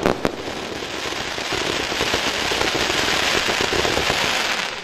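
Forbidden Love "Arch" firework cake firing: a couple of sharp shots at the start, then a dense, continuous crackle from the bursting effects. The crackle builds to its loudest about three to four seconds in and eases off near the end.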